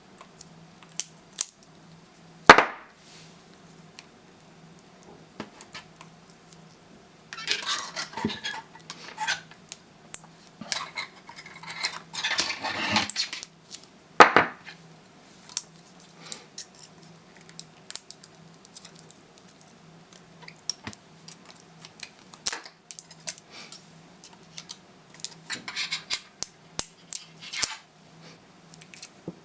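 Metal tools working on a laptop battery pack of 18650 cells: scattered clicks and clinks, scraping from about 7 to 13 seconds in, and two sharp knocks, one near the start and one about halfway through.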